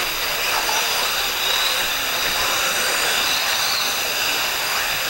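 Electric 1/8-scale off-road RC buggies racing: a steady high whine and hiss of their electric motors and drivetrains, with a faint rise and fall in pitch as they speed up and slow down.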